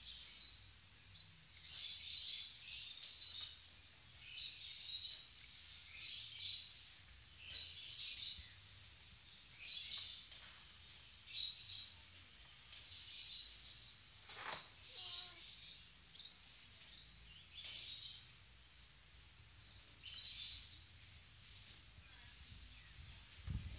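A bird singing short, high chirping phrases that repeat every second or two, with one lower falling note about halfway through.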